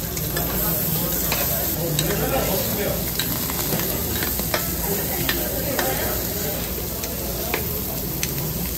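Food sizzling on a hot cooking surface, a steady crackling hiss with scattered sharp clicks.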